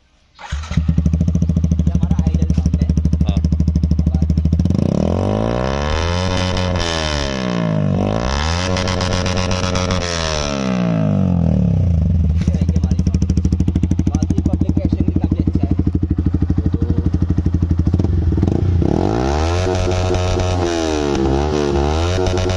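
Yamaha R15M's 155 cc single-cylinder engine with an aftermarket Akrapovič-style full-system exhaust fires up about half a second in and idles, loud and bassy. About five seconds in it is blipped several times, the pitch rising and falling with each throttle stab. It settles back to idle and is blipped again in a quick series near the end.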